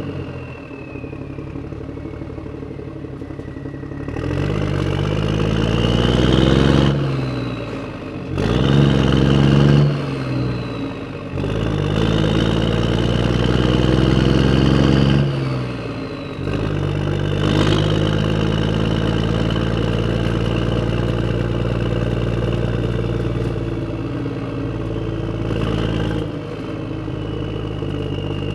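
Tractor engine driving on a road. The revs climb and fall back three times, then the engine runs at a steady speed.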